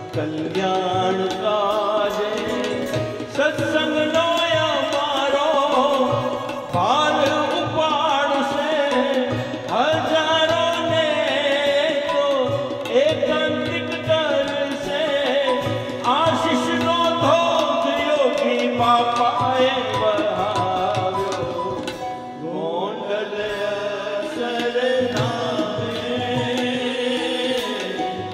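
Indian devotional song (bhajan) with tabla keeping a steady beat under a melody that slides between notes.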